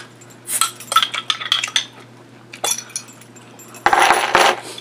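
Cap being twisted off a small glass drink bottle, a string of sharp clicks and clinks, then the bottle set down on a wooden board near the end with a short rattling clatter and knock.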